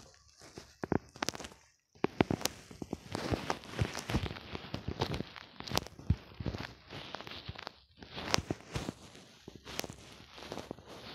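Irregular clicks, taps and soft knocks of fingers working a phone's touchscreen, picked up by the phone's own microphone, several a second with short pauses.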